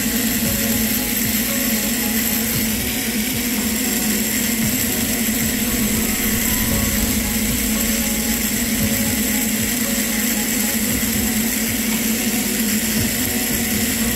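Flex-shaft rotary tool running steadily at one even speed, its burr grinding the inside of a silver ring's bezel seat.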